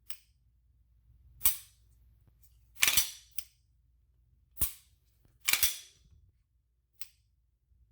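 Polymer 80 Glock-pattern pistol fitted with a Glock Store Black Yikes 3.0 connector being dry-fired: sharp metallic clicks of the trigger breaking and resetting, about half a dozen strong ones, some in close pairs, with a few fainter clicks between. The reset is crisp and positive.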